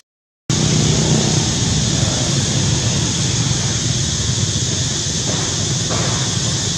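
Steady outdoor background noise, a continuous hiss over a low rumble, after a brief dropout to silence at the very start.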